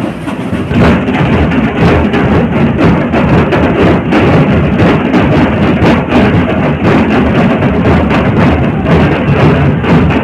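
Procession drums beaten loudly with sticks in a continuous run of strokes, over the din of a large crowd.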